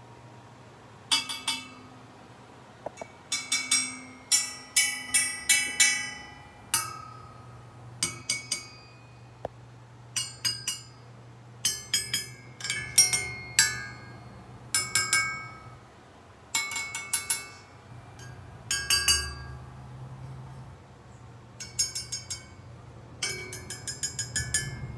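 Serrated steel knife blade tapped repeatedly against the arms and candle cups of a five-light 833 silver candelabrum, each strike giving a clear, bell-like ringing chime. The taps come in quick clusters of two to five every second or two.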